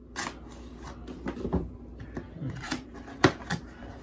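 A small cardboard box being slit with a knife and its flap pried and torn open: a run of irregular scrapes and clicks, with one sharp snap a little after three seconds in.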